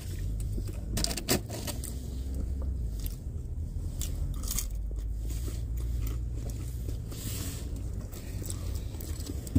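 Eating and drinking in a truck cab: small clicks, rustles and crunches of a fork, food and a drink can, with a few sharper clicks about a second in, over a steady low hum.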